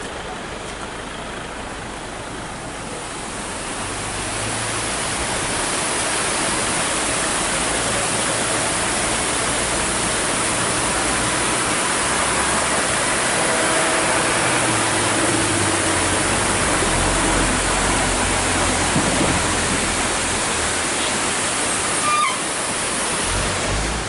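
Waterfall rushing: a steady, unbroken noise of white water cascading over rock, growing louder a few seconds in and then holding level.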